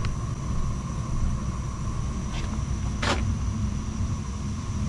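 Weil-McLain EGH-125 gas-fired steam boiler running, a steady low rumble with a faint high whine over it, while carbon monoxide reads at the open draft box. A single sharp click comes about three seconds in.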